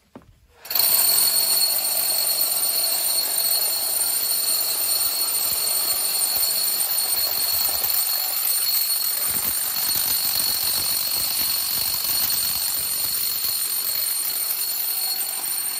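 Electric rotary hammer drilling into a poured-concrete wall: a steady, loud hammering with a high ringing tone, starting abruptly about a second in.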